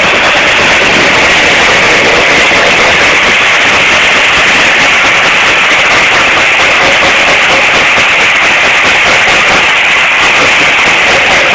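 Core-cutting machine running continuously at work, a loud, steady, harsh grinding noise that stays even throughout.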